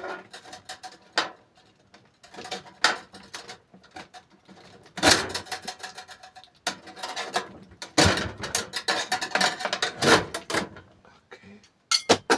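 Computer parts being handled during a desktop PC teardown: irregular clicks, knocks and rattles in bursts, loudest about five seconds in, again from about eight to ten seconds, and once more near the end.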